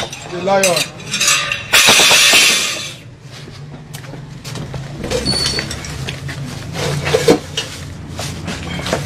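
Pots and metal objects in a shrine being smashed and knocked about: scattered clanks and knocks, with a loud crash about two seconds in.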